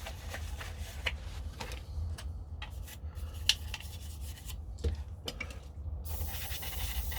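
Wiping and rubbing inside a plastic airsoft magazine case to clean out dirt, with irregular scrapes and small clicks of the plastic and a brief hiss near the end.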